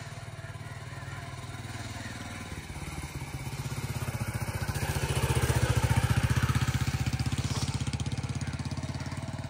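Small commuter motorcycle's engine running as it rides up, passes close by and pulls away, with a steady rapid firing beat. It grows louder to a peak about six seconds in, then fades.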